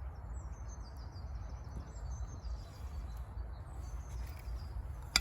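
Small songbird singing repeated high trilled phrases in several bouts over a steady low rumble, with one sharp click right at the end.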